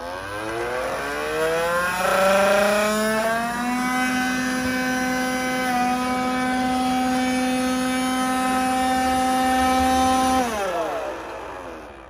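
Xiaowa robot vacuum's suction fan motor spinning up with a rising whine, holding a steady high pitch for several seconds, then winding down near the end. This is the noise the owner says the vacuum has started making and cannot explain.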